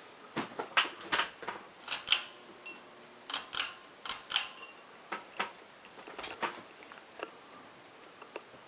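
Ceiling fan pull chain and switch clicking and rattling: about twenty irregular sharp clicks, some with a faint metallic ring, thinning out after about seven seconds.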